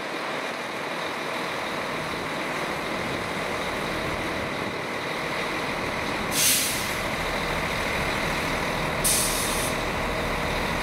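Train standing at the platform, its air brake system letting out two short, sharp hisses of compressed air about two and a half seconds apart over a steady rumble.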